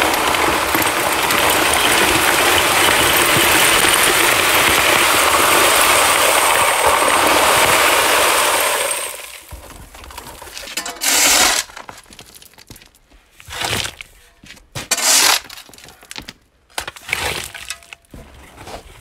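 Gravel pouring from a cardboard box into a plastic bucket around a hydrant pipe: a loud, continuous rush of stones for about nine seconds. After that come several short rattles as the last stones are shaken out.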